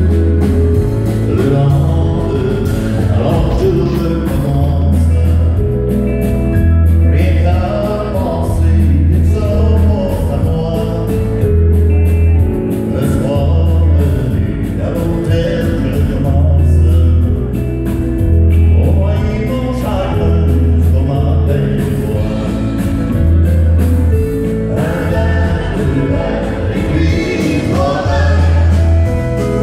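Live country-western band playing through a PA: a woman sings the lead over acoustic guitar, keyboards and drums, with a strong bass line underneath.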